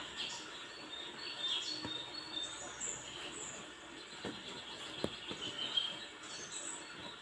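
Small birds chirping in short, high calls on and off, over a low background hiss. A few sharp clicks come about four to six seconds in.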